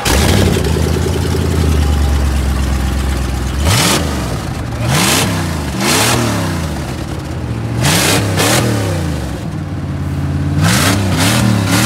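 First-generation Dodge Durango's engine running through a straight-piped exhaust, its muffler and catalytic converter cut off, revved in several sharp blips with a quick string of blips near the end.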